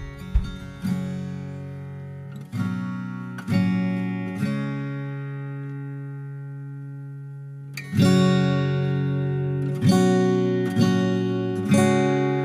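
Background music: an acoustic guitar instrumental, strummed chords ringing out and fading, with one long held chord before the strumming resumes about eight seconds in.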